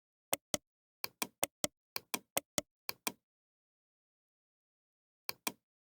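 A run of sharp taps, mostly in pairs, about a dozen over three seconds, then one more pair near the end, with dead silence between them.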